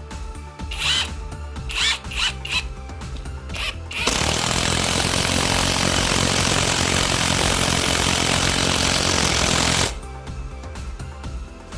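Cordless driver, its battery rebuilt with Samsung 18650 cells, driving a long wood screw into a timber beam. After a few short sounds, it starts about four seconds in, runs loud and steady for about six seconds and stops suddenly as the screw seats. Background music plays underneath.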